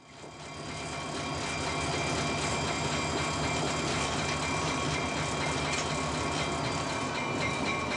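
Inside the cab of a VIA Rail F40PH-2 diesel locomotive under way: steady engine hum and running noise with a few thin whining tones over it. It fades in over the first second or two.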